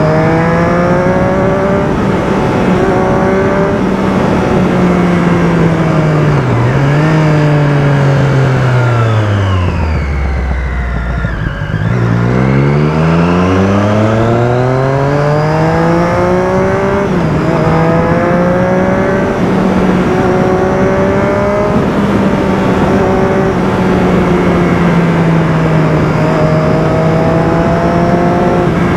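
Motorcycle engine running under way with steady wind and road noise. Its pitch holds steady, falls away as the bike slows almost to idle about ten to twelve seconds in, then climbs again through the gears with a shift about five seconds later before settling back to steady cruising.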